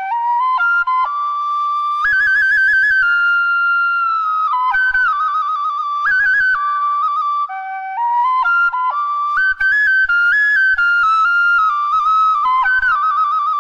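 Solo bamboo flute playing a Khmer classical melody, moving between held notes and ornamented with quick trills.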